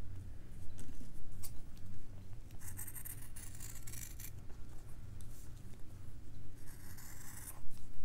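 Scissors cutting through folded fabric: a stretch of crisp snipping about two and a half seconds in lasting nearly two seconds, then a shorter one of about a second near the end.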